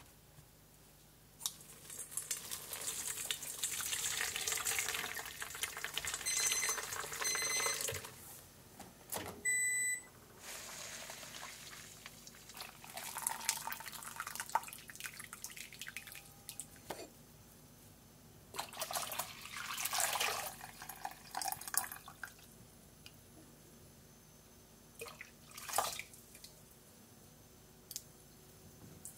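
Dashi stock being strained through a sieve into a steel bowl: splashing, trickling and dripping liquid in several bursts, with a few short electronic beeps between about six and ten seconds in.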